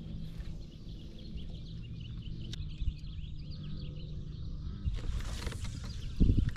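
Open-air ambience over marshy water: a steady low rumble with many small birds chirping in a busy chorus, and a loud low thump near the end.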